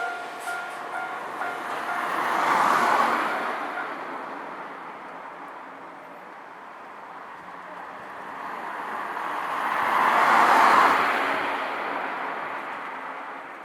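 A level-crossing warning alarm rings on for its last few seconds after a train has passed, then stops. Two road vehicles pass over the crossing one after the other, about eight seconds apart, each swelling and fading.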